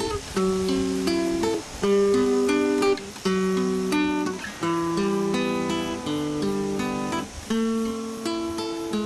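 Background music: an acoustic guitar picking a melody of overlapping held notes.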